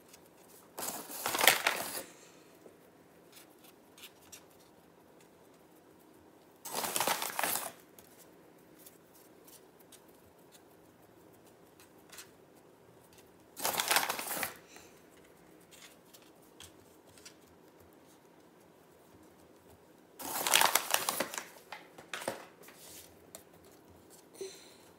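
Hands rubbing and pinching floured dough on a wooden cutting board: four short rustling, crinkling bursts about every six to seven seconds, with faint taps and ticks between.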